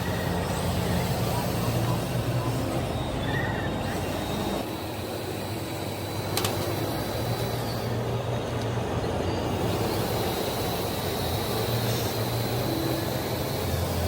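A steady motor or engine running sound with a low hum that shifts a little in pitch, and a single sharp click about six and a half seconds in.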